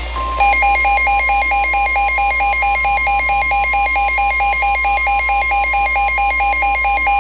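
NOAA Weather Radio 1050 Hz warning alarm tone, a steady high tone, with rapid electronic beeping laid over it at about five or six beeps a second; the tone signals that a warning is about to be broadcast.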